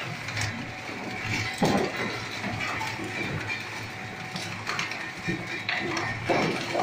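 A 20 HP electric plastic shredder running with a steady hum while its cutters crunch and crack pieces of polyethylene drum, with irregular clattering and loud cracks about a second and a half in and again near the end.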